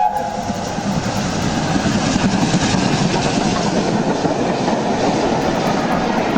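A train passing at speed: a steady loud rumble with the clatter of wheels on rail.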